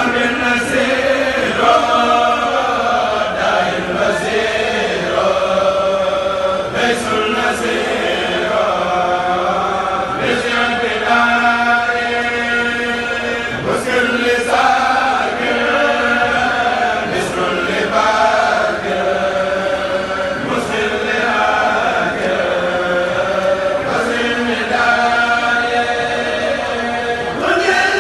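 A group of men chanting Mouride khassaides (sung religious poems) together in long, held, melodic lines, amplified through microphones and a loudspeaker system.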